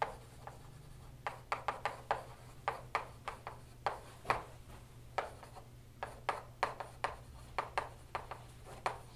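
Chalk writing on a blackboard: a quick, irregular run of sharp taps and short scratches as letters and symbols are written. A steady low hum runs underneath.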